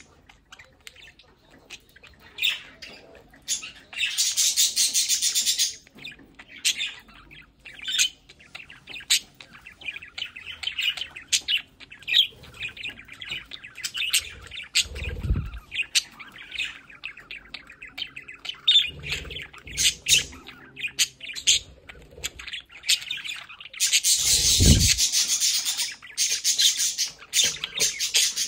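Budgerigars chirping and chattering in many short high calls. There are two longer, louder stretches of harsh sound, about four seconds in and near the end, and a dull low thump about halfway and again near the end.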